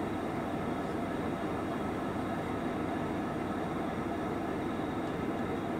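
Diesel-electric freight locomotives idling: a steady, even rumble that does not change.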